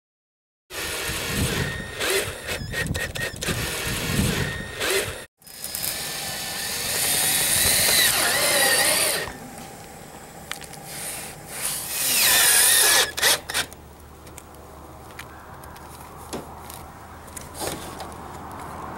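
Power drill with a 1/4-inch driver running in several runs, driving self-drilling screws with neoprene washers through aluminum roof flashing. The motor pitch rises and falls as each screw goes in. The longest run is about halfway through and another comes near two-thirds of the way, with lighter clicks and handling in between.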